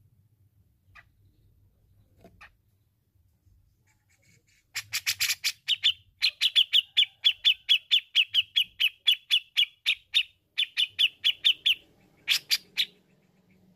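Grey-cheeked bulbul (cucak jenggot) calling: a fast run of sharp, repeated notes, about five a second, lasting some seven seconds with a brief break, then a few louder notes near the end.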